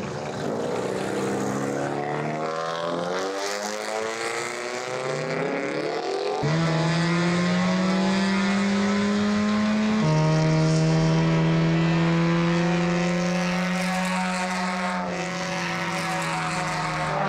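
Stock car's Ford twin-cam four-cylinder engine pulling away in first gear, its pitch climbing again and again as it accelerates. About six seconds in, a louder steady engine note of a race car at speed takes over, stepping in pitch near ten seconds and easing off near the end.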